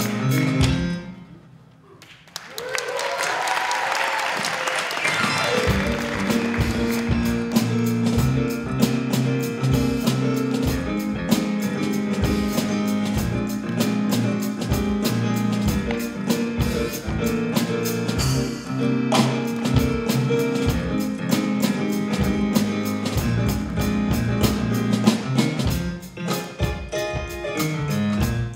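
Live band music with a drum kit. The music drops away briefly about a second in, swells back up, and then the drums settle into a steady beat under the band.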